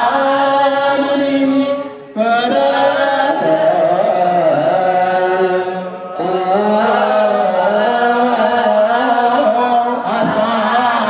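Ethiopian Orthodox liturgical chant (zema): men's voices singing together in long, slowly bending held notes, with short breaks between phrases about two and six seconds in.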